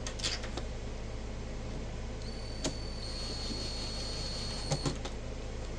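Steady low electrical hum with a few light clicks and knocks of handling, and a faint high-pitched steady whine starting about two seconds in and lasting roughly three seconds.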